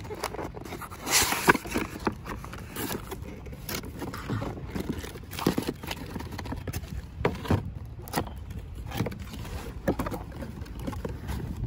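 A cardboard speaker box being handled and opened: flaps pulled and the inner box slid out of its printed sleeve, with scattered knocks and scrapes of cardboard. The loudest is a scraping rustle about a second in.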